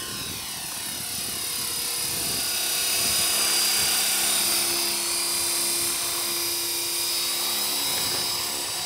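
Belt CP electric radio-controlled helicopter in flight: a steady high-pitched motor and gear whine with the whir of its rotor blades. It grows louder as the helicopter passes close, about three and a half seconds in, then fades a little.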